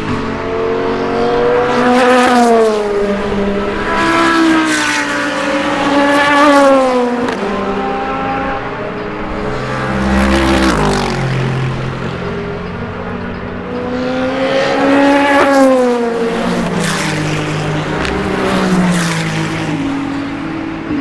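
Several race cars passing one after another at speed, their engine notes climbing through the gears and dropping sharply as each goes by.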